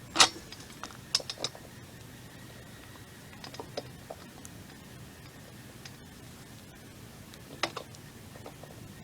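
Sharp knocks and clicks from swing set parts being handled and fitted together: a loud knock just after the start, three quick clicks around a second in, a few faint taps around three to four seconds, and another sharp knock near the end.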